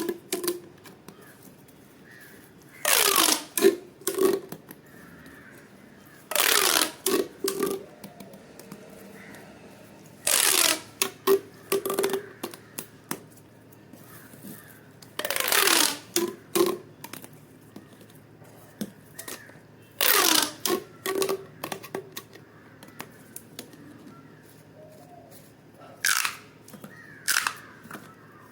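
Crunchy pop toy being squeezed and handled, giving a crackly, crunchy burst every four to five seconds. Each burst drops in pitch and is followed by a few small clicks.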